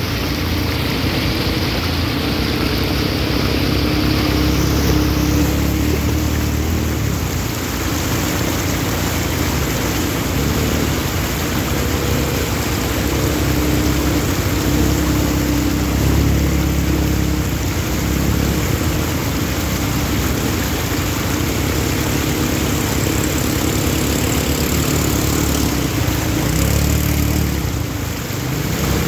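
Several ATV (quad bike) engines running as the quads drive through a shallow rocky stream, with water rushing and splashing under the wheels.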